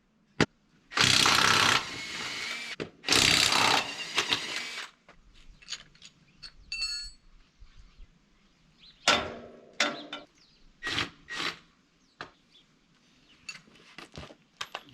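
Impact wrench running in two bursts of a second or two each, spinning off the lug nuts of a chisel plow wheel, followed by scattered metallic clanks and knocks.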